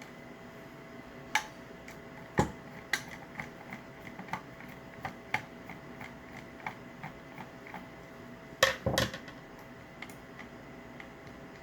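Irregular small metal clicks and clinks of screws and parts of an electronic hotel door lock being handled during disassembly, with a louder cluster of knocks about nine seconds in.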